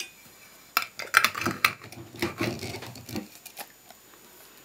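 Glass pickling jar being handled and lifted off a table: a few sharp clicks and knocks about a second in, then a low scraping rumble lasting about two seconds.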